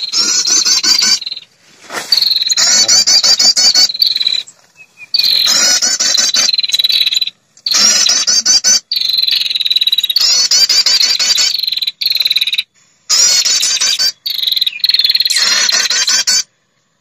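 Female perenjak lure call: rapid, high, insect-like trilling phrases of a small warbler, repeated in bursts of one to two seconds with abrupt breaks between them, played to draw males in.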